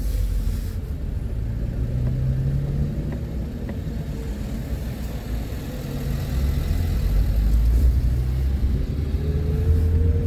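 A car driving along a street: a steady low engine and road rumble, with the engine note rising as it speeds up near the end.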